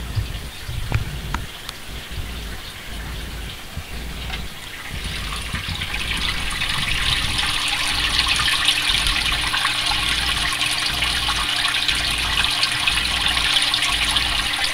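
Water running in a goldfish aquarium: a steady hiss that grows louder about five seconds in and then holds, with a faint steady hum beneath it. A few soft knocks come in the first two seconds.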